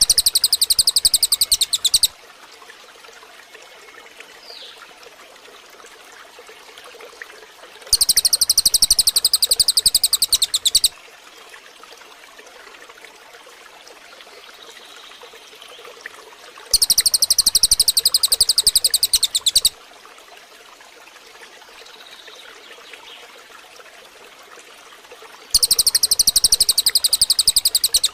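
Songbird giving a fast, even, very high rattling trill in bursts of about three seconds, repeated four times at regular gaps of roughly six seconds. Between the bursts are faint chirps and a faint background like trickling water.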